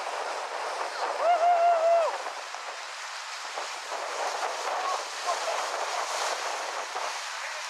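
Steady surf and wind noise, with a high, drawn-out voiced cry like an "ooh" about a second in, lasting about a second and louder than anything else, and a few short faint voice sounds around five seconds in.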